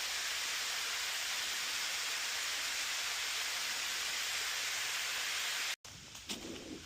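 Steady rushing of falling water from a waterfall. It cuts off abruptly near the end, and quieter, uneven rustling and low thumps follow.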